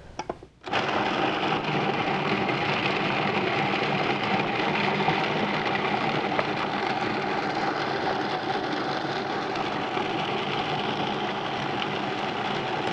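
Food processor with an S-blade switching on just under a second in and running steadily, chopping Granny Smith apples and raisins into a paste.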